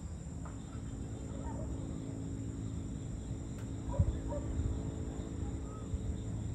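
Outdoor evening ambience: a steady low rumble with a faint hum, a few faint short distant sounds, and a brief knock about four seconds in.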